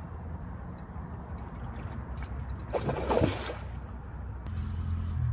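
Hooked carp splashing at the water's surface about three seconds in, a short burst of sloshing water over a steady low rumble.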